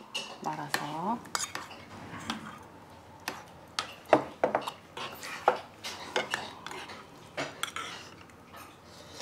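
Metal spoons clinking and scraping against stainless-steel rice bowls and earthenware ttukbaegi pots as rice is scooped out and stirred into soup: a string of irregular sharp clinks.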